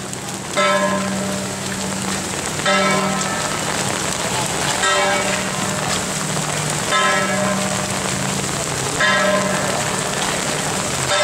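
A metal gong struck steadily about every two seconds, each stroke ringing on, over the steady hiss of heavy rain.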